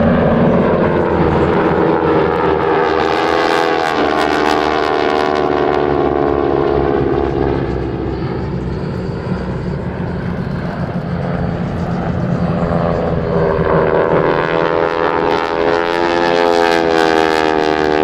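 Several SNJ propeller planes with radial engines flying past in formation, their engine drone sliding in pitch as they pass, most clearly about four seconds in and again in the last few seconds.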